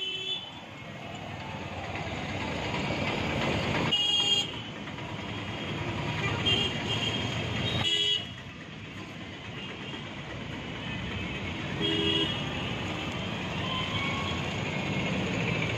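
Street traffic running steadily, with several short vehicle horn toots sounding at intervals.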